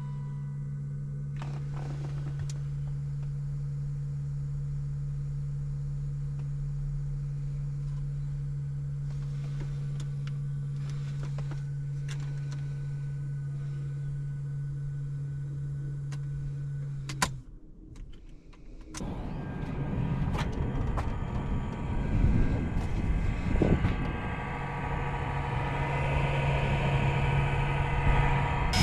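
Loud, steady hum from a 2001 BMW Z3's ECU cooling fan going bad, which stops with a click about seventeen seconds in. After a short lull, a louder, uneven noise takes over.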